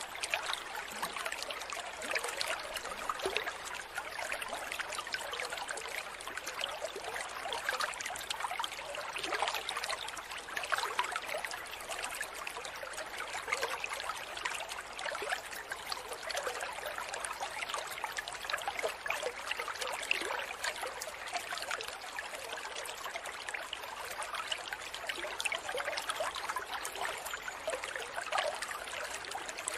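Aquarium air stone bubbling steadily: an even, fine trickle of many small bubbles.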